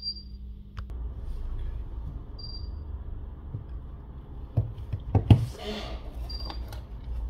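Handling noise as the opened smartphone frame is picked up and shifted on a rubber repair mat: scattered light clicks, then a cluster of louder knocks about five seconds in, with a fabric rustle as a sweater sleeve brushes close by.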